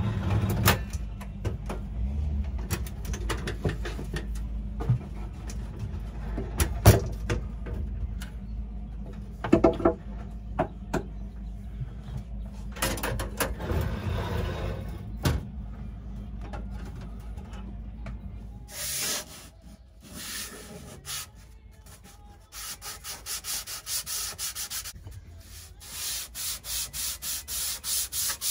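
Scattered knocks and clanks of a stainless two-burner electric cooktop being lifted out of its counter cutout, over a low steady hum. The hum stops about 19 seconds in. From about 22 seconds a wooden countertop is sanded by hand in rhythmic back-and-forth strokes, about three a second.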